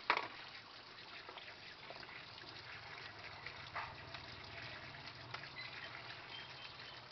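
Tap water running steadily into a sink full of live crabs as they are handled under the stream. There is one sharp knock just after the start and a few fainter clicks later.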